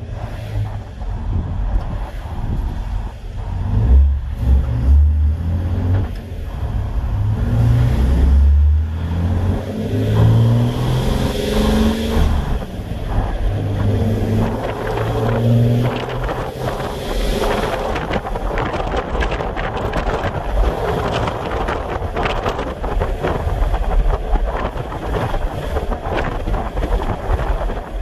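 Emissions-deleted Cummins 6.7-litre inline-six turbo-diesel in a six-speed manual pickup, heard from inside the cab as it pulls through the gears: the engine note steps up in several pulls over the first half, then runs on steadily with road noise.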